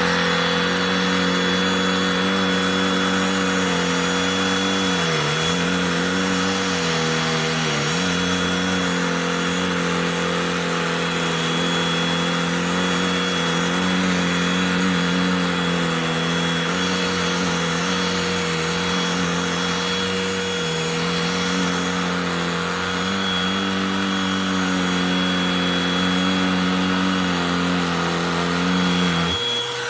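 Cordless handheld vacuum running steadily with a whirring motor whine and airflow hiss. Its pitch dips briefly twice in the first eight seconds, as if the motor is loaded down.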